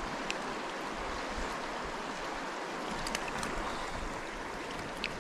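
River water rushing steadily, with a few faint high ticks over it.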